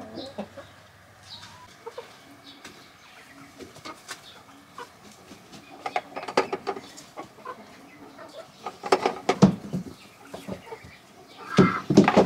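Hens clucking, with short knocks of eggs being gathered into a plastic bowl in the second half, loudest near the end.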